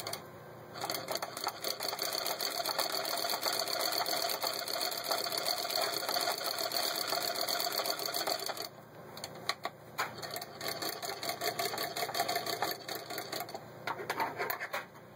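Singer 40K hand-crank child's chain-stitch sewing machine being cranked through fabric: a fast, steady clatter of needle strokes starts about a second in. After about nine seconds it gives way to slower, uneven clicking.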